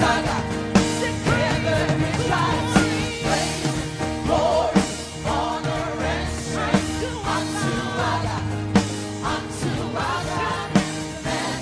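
Christian worship music: singing voices over a band, with a sharp drum hit about every two seconds.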